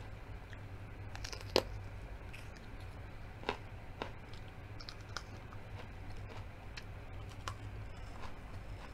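Close-miked eating: scattered crisp bites and chewing clicks, the sharpest about one and a half seconds in, over a low steady hum.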